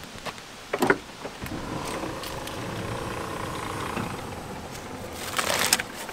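A motor vehicle's engine running, swelling and then fading over a few seconds. It comes between a single knock about a second in and a short loud rustling clatter near the end.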